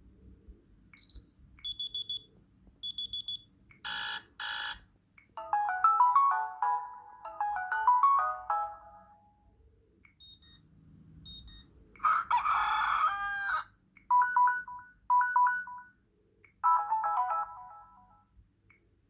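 Samsung Galaxy Gio phone speaker playing short ringtone and notification previews one after another, each cut off after a second or two: high beeps and chimes, a buzz, a quick melody, and a longer noisy call about twelve seconds in.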